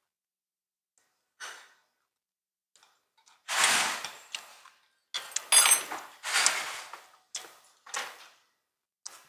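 Breathy mouth sounds of people eating hot beef-bone soup at the table: a string of short, airy bursts starting about three and a half seconds in.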